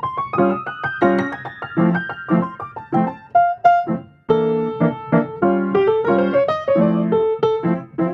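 Background piano music, a quick run of short notes with a brief pause about four seconds in.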